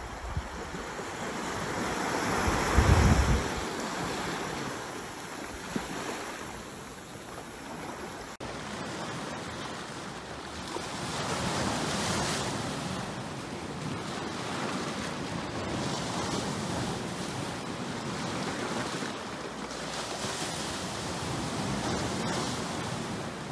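Wind buffeting the microphone, strongest about three seconds in, over the hiss of surf. After a cut, sea waves wash in slow swells against a rocky breakwater, with wind on the microphone.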